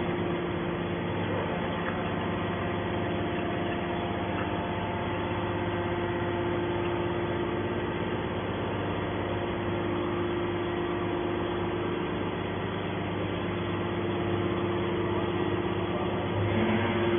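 Mini hydraulic can baler running: its motor and hydraulic pump hum steadily, getting a little louder near the end.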